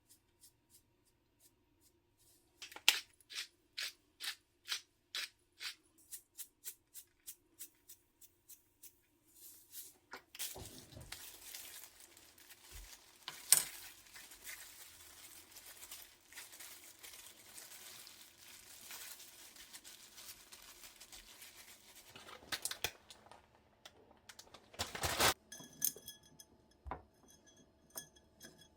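Kitchen food-prep handling sounds: a run of evenly spaced clicks, about two a second, then a long stretch of soft rustling like packaging being torn or cut, with a few louder clatters near the end.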